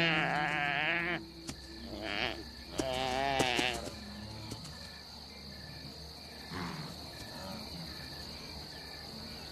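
Wildebeest calf bleating in distress as a cheetah pulls it down. There is a long wavering cry, then a shorter one about three seconds in. After that, insects chirp in a steady, evenly repeating pulse.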